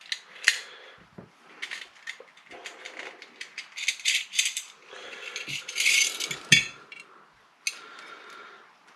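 Irregular metallic clicks, scrapes and rattles of a Norinco NP17 pistol's small steel parts being worked apart and handled during disassembly, with a sharp knock about six and a half seconds in.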